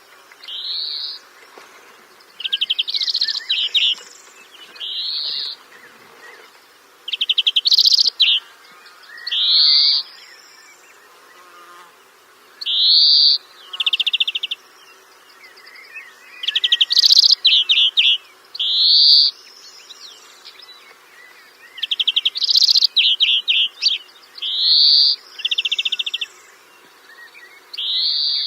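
A songbird singing repeated high phrases: short upslurred whistles alternating with fast buzzy trills, one phrase every second or two.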